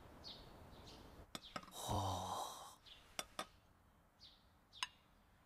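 A man sighs once, breathily, about two seconds in, over faint repeated bird chirps and a few soft clicks.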